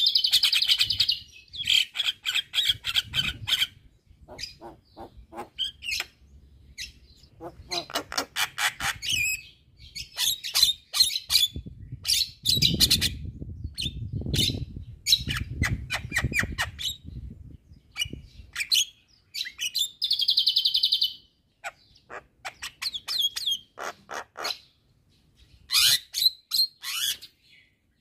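Javan myna singing in full voice: bursts of fast, harsh rattling notes and clipped chirps, separated by short pauses. A low rumble runs underneath for a few seconds near the middle.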